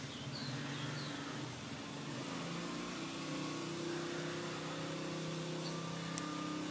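A motor vehicle's engine running close by on the road, a steady low hum that drifts slowly in pitch. A single sharp click about six seconds in.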